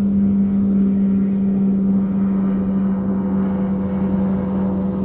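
Boat motor running with a steady drone at a constant pitch.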